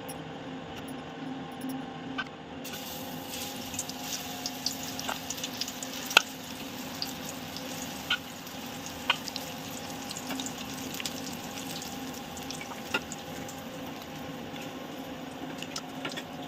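Battered onion rings deep-frying in hot oil in an aluminium wok: steady bubbling with scattered sharp crackles and pops, which begin about three seconds in.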